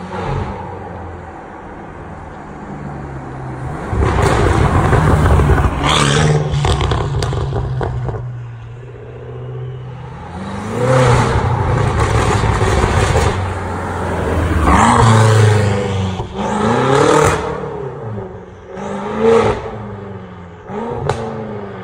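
BMW M5 F90's twin-turbo V8, fitted with a valvetronic catback exhaust and catless downpipes, accelerating hard several times, its pitch climbing and falling with each pull. Several sharp cracks come off the exhaust between the pulls.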